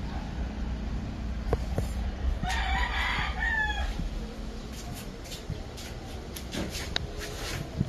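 A rooster crowing once, about two and a half seconds in, a call of roughly a second and a half that falls away at the end, over a steady low rumble. A few light knocks follow near the end.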